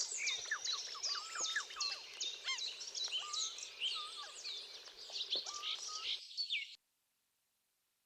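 Several songbirds chirping and whistling together, a dense mix of short, quick calls. The sound cuts off abruptly about six seconds in and leaves silence.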